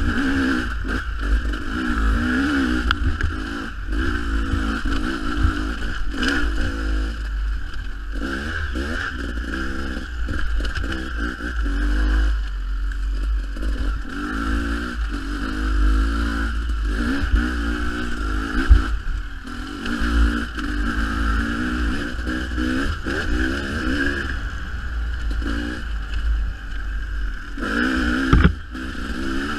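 Dirt bike engine revving up and down continuously as the throttle is worked on a rough trail, with a few sharp knocks from the bike.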